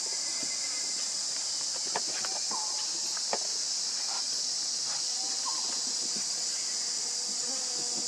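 Steady high-pitched drone of an insect chorus, with a few short chirping calls every couple of seconds and two brief clicks.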